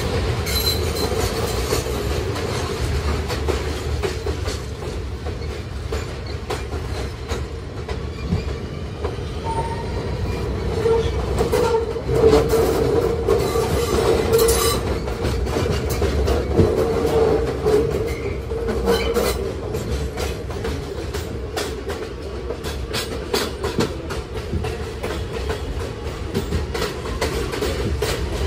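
Kawasaki R211A subway car running along the track: steady rumbling running noise with rapid clickety-clack of wheels over rail joints. A sustained tone rides on top and swells louder partway through.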